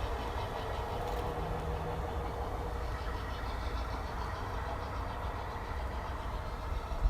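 G-scale model train running steadily along the track, a continuous mechanical hum with a low rumble underneath.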